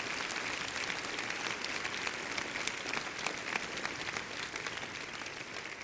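Congregation applauding, a dense patter of many hands clapping that slowly dies down toward the end.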